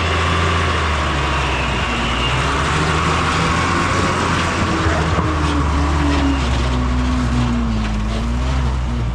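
Car engine running hard under a heavy load, a steady low drone with a slightly wavering pitch; the driver says there is 'no pressure', meaning the engine lacks power with the load.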